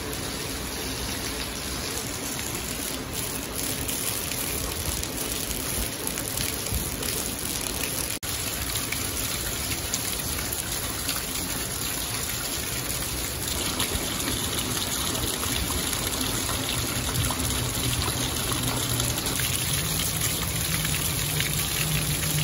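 Heavy rain pouring down steadily, with rainwater gushing out of metal roof downspouts and splashing onto concrete.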